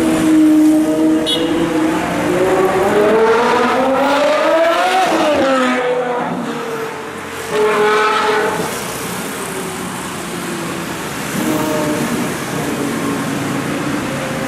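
Ferrari 812 Superfast's V12 engine revving: the pitch climbs steadily for about three seconds and then falls away, followed by a sudden loud rev about eight seconds in and steadier running after it.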